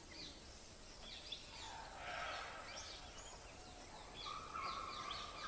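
Faint forest ambience: many short, quick chirping calls, joined about four seconds in by a steady high-pitched drone.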